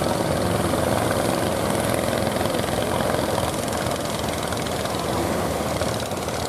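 Engines of several motorised wooden fishing boats and outrigger canoes running steadily as they head in, a continuous dense drone.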